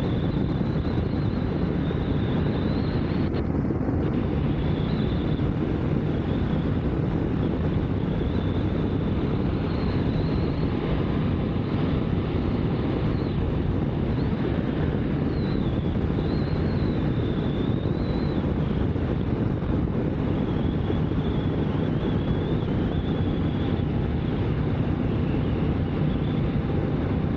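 KTM 890 Adventure R's parallel-twin engine running steadily at cruising speed, with wind rushing over the rider's microphone. The level holds steady throughout, with no gear changes or revving.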